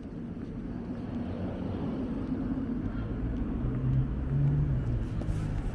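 A car driving along the street toward the listener, its engine hum growing steadily louder as it nears, over low street background noise.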